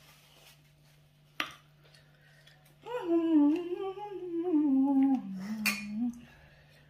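Two drinking glasses clinked together in a toast, one sharp clink near the end, over a person's voice humming a long wavering note that slides down in pitch. A single sharp tap comes about a second and a half in.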